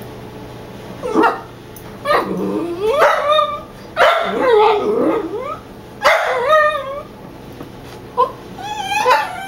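Dachshund puppy barking and whining at its own reflection in a mirror: a string of about six loud calls whose pitch wavers, some starting with a sharp bark.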